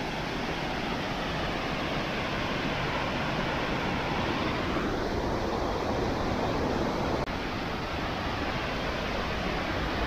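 Steady rush of a wide waterfall's falling water, with a brief break about seven seconds in.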